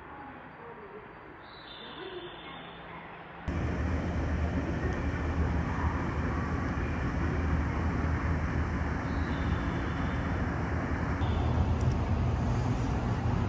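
Outdoor ambient noise: a quiet background with a few faint rising-and-falling calls, then, about three and a half seconds in, a sudden change to a louder steady rumble with a low hum.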